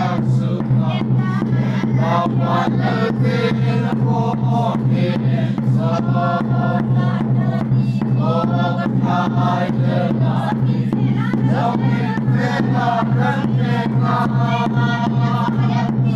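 A small congregation singing a hymn together, with a steady beat keeping time.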